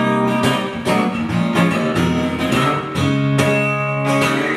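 Acoustic guitar strummed in a steady rhythm of about two strokes a second, ringing chords with no voice.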